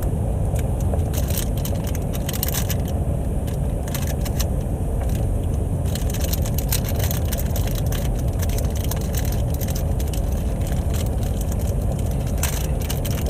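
A snack package crinkling and rustling in short bursts as it is handled and opened, over the steady low rumble of a car.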